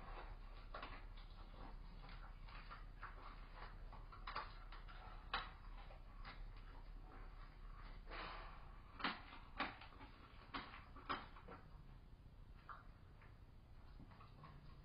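Amur leopard kitten hissing and spitting in short, sharp bursts, warning off another leopard that is trying to get at its carcass. The sharpest bursts come close together about two thirds of the way in.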